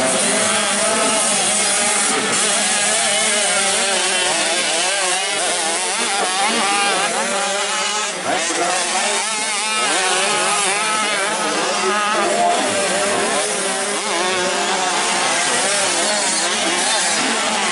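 Several motocross dirt bikes racing, their engines revving hard and shifting, the pitch rising and falling continuously as they overlap.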